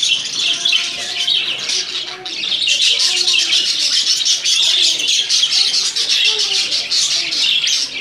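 Budgerigars chattering and warbling: a continuous dense twittering with short warbled notes mixed in.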